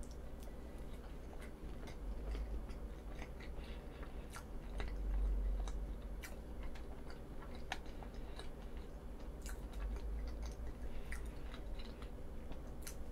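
A person quietly chewing a mouthful of green tea (matcha) roll cake, close to the microphone. Scattered small clicks of mouth noise run throughout.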